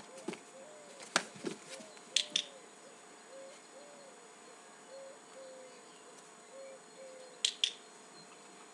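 A handheld dog-training clicker clicked twice, each time a quick double click-clack of press and release: once about two seconds in and again near the end, marking the puppy's action before a treat. A single sharp knock comes about a second in, and a short call repeats about twice a second in the background.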